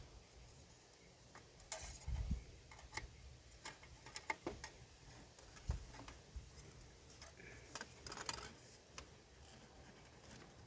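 Light, irregular clicks and taps of hand tools against metal parts and a hose clamp while an air intake hose is refitted in the engine bay, with a few dull knocks.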